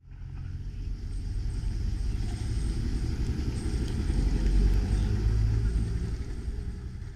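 Motor scooter engine passing close by, a low rumble that swells to its loudest about four and a half seconds in and then fades away.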